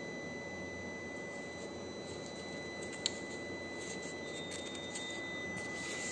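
Steady room hiss with a faint, thin high whine. Over it, a packaged tempered glass screen protector and a foam packing tray are handled, with one sharp click about three seconds in and a few faint ticks after.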